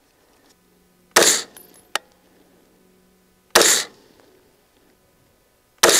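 Three shots from an AR-15 rifle in .223/5.56, fired as slow aimed fire a little over two seconds apart, each a sharp crack with a short tail.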